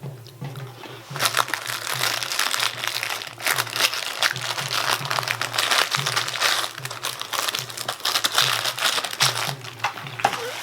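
Foil biscuit wrapper crinkling and rustling as it is handled, a dense run of crackles that starts about a second in and dies down near the end.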